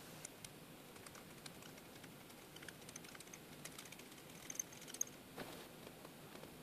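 Faint scratching and irregular small ticks of a pointed scribing needle drawing lines through the coating on a steel axe head, with a couple of sharper clicks about four and a half and five seconds in.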